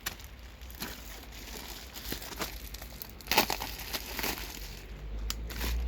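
Plastic wrapping crinkling and rustling in irregular bursts, with small clicks, as parts are handled. It is loudest about three seconds in.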